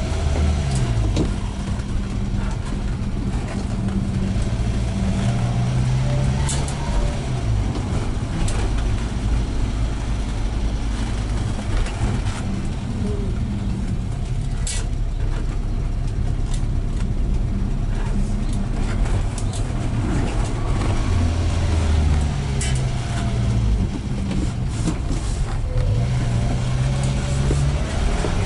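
A 1999 Subaru Sambar kei van's small engine runs under way, its revs rising and falling several times as it pulls and eases off, over a steady road noise with a few small knocks.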